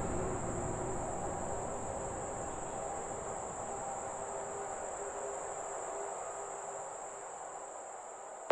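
Quiet atmospheric intro of a house track: a steady, high-pitched, insect-like chirring over low rumbling noise, fading slightly near the end.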